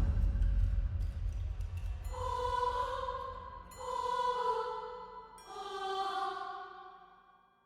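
Horror sound effect: a deep rumble dies away, then three eerie, wordless choir-like chords swell and fade one after another before the sound dies out.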